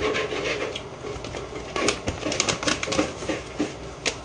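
A plastic food packet crinkling as it is handled, with irregular crackles and clicks.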